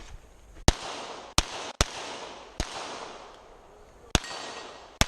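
A string of pistol shots from a Glock 22 in .40 S&W, about six sharp reports irregularly spaced half a second to a second and a half apart, each with a short echo.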